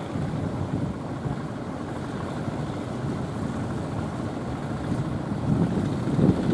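Wind buffeting the microphone over the rush of surf, with a stronger gust about five and a half seconds in.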